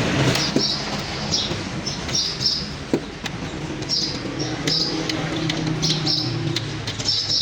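A small bird chirping repeatedly in short, high, irregularly spaced calls, often in pairs, over a low steady hum, with a single sharp click about three seconds in.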